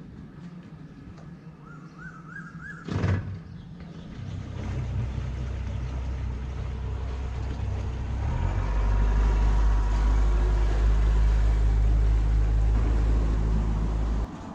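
Boat's outboard motor running steadily. It grows louder about four seconds in and steps up again about eight seconds in as it is throttled up, then cuts off suddenly just before the end. A single sharp knock sounds about three seconds in.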